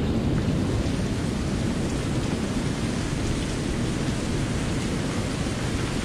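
Steady rushing noise of wind and sea surf on an open shore, with no distinct events.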